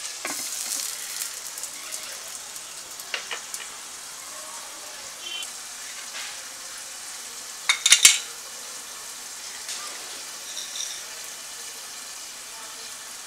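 Fish curry sizzling and simmering in a pot over a wood fire: a steady hiss with scattered crackles. The clay lid knocks onto the pot right at the start, and a quick cluster of sharp clicks about eight seconds in is the loudest sound.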